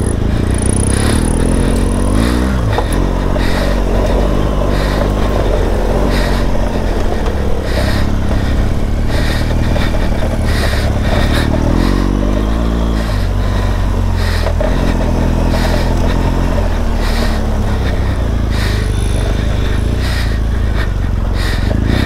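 BMW R 1200 GS boxer-twin engine running under way on a dirt trail, its revs rising and falling several times with the throttle. Frequent knocks and rattles come from the bike jolting over the ruts.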